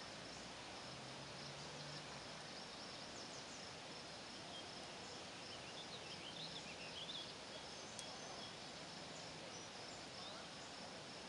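Faint dusk lakeside ambience: a steady high insect drone over an even hiss, with a short burst of bird chirps about halfway through.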